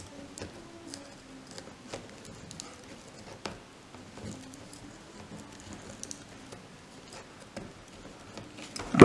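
Faint, scattered clicks and light scraping of steel needle-nose pliers working a metal acorn tip back onto a braided hat cord.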